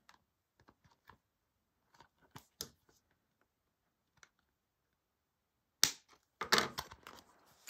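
Small scissors snipping notches into the edge of a vinyl-and-fabric bag panel: scattered faint clicks, then a sharper snip about six seconds in followed by a run of quick clicks and handling sounds.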